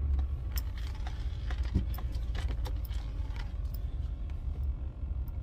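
Car interior: the engine runs as a steady low rumble while the car is parked, with scattered small clicks and rattles.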